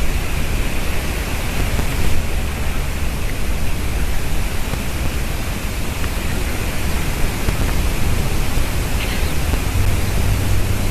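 Steady hiss of outdoor background noise with a low rumble, and one brief high call about nine seconds in.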